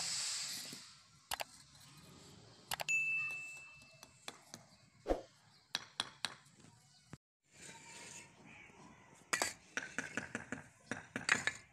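Irregular sharp taps and knocks of a hammer setting clay bricks into a mortar bed, with a single ringing ding about three seconds in. Background music fades out in the first second.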